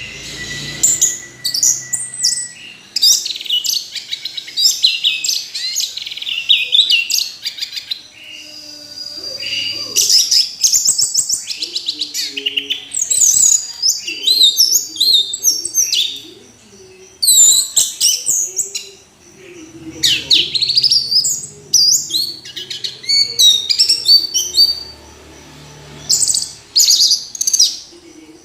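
Orange-headed thrush (anis merah) in full song: a fast, varied run of high whistled and chattering notes, delivered in phrases of a few seconds separated by short pauses.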